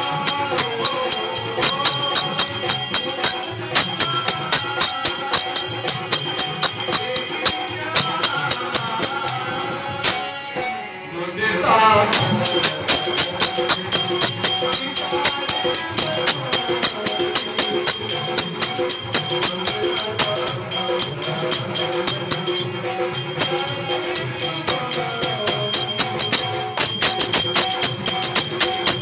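Indian devotional music: a harmonium melody with a dholak drum and manjira hand cymbals keeping a steady beat. The beat drops out briefly about ten seconds in, then resumes.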